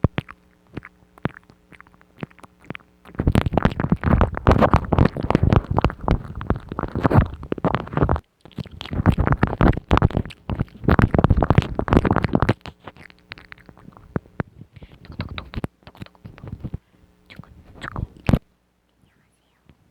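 ASMR mouth sounds: wet clicks and smacks of the tongue and lips. They come sparsely at first, then in dense rapid runs from about three seconds in, with a short break near the middle, then thin out and stop shortly before the end.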